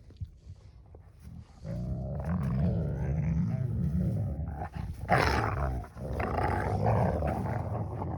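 Wolfdog puppies growling and snarling at each other during play-wrestling. It starts with a few soft scuffling clicks, then becomes continuous low growling at about one and a half seconds in, with a louder snarl about five seconds in.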